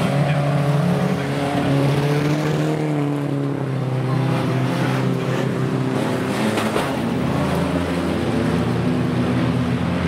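Several derby team cars' engines running hard on a dirt speedway track, their pitch rising and falling as the drivers work the throttle.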